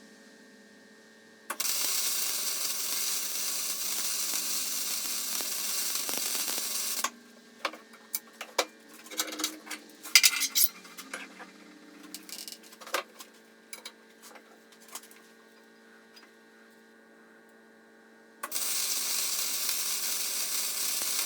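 Gasless flux-core MIG welding arc, a steady loud crackling hiss, running for about five seconds, stopping, then starting again near the end. In between come a series of sharp metallic clinks and taps on steel.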